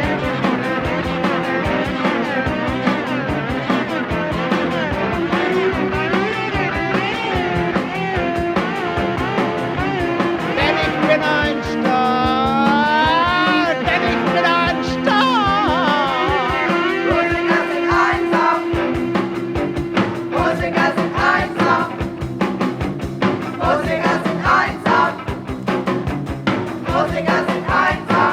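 Punk-rock band music from a 1983 master tape: a guitar band with drums playing steadily, and a wavering, gliding instrumental line about halfway through.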